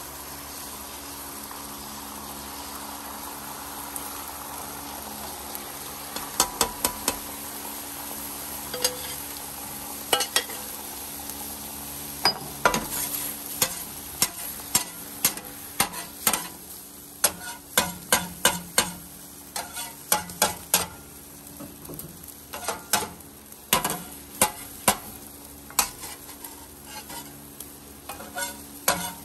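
Food sizzling on a Blaze flat-top griddle, a steady frying hiss. From about six seconds in it is broken by sharp clicks and taps, which come more often in the second half.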